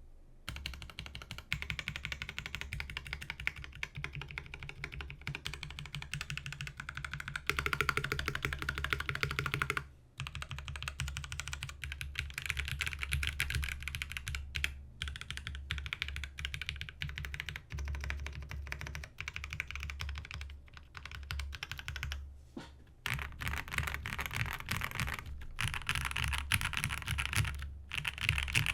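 Fast, continuous typing on a Space65 CyberVoyager custom mechanical keyboard: a dense stream of key clicks, with brief pauses about 10 seconds and 22 seconds in.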